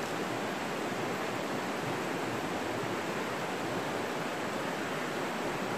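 River rapids rushing over rocks: a steady, even rush of water.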